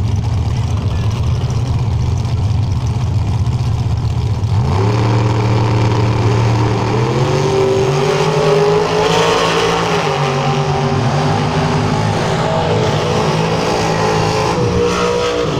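Drag car engines rumbling steadily at the start line, then launching about four and a half seconds in: the engine note climbs in steps as the cars pull down the strip, and cuts off near the end.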